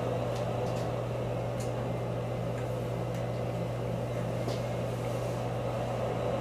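Rheem hydronic forced-air heating system coming on after a call for heat, running with a steady low hum and a few faint ticks.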